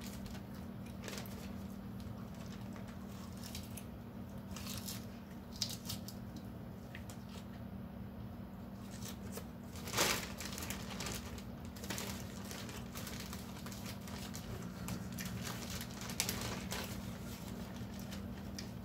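A plastic bag of salad crinkling and rustling as a hand reaches into it and lifts it, with the loudest rustle about ten seconds in, mixed with wet chewing of salad. A steady low hum runs underneath.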